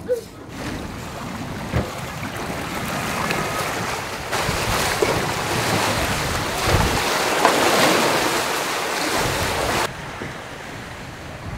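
Wind and water rushing past a sailboat under sail, with wind buffeting the microphone. It grows louder partway through and drops off suddenly near the end.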